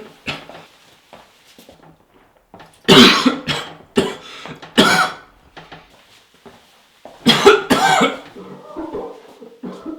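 A person coughing loudly and deliberately in two bouts, three coughs about three seconds in and another bout a couple of seconds later: fake coughs to signal that the toilet is occupied.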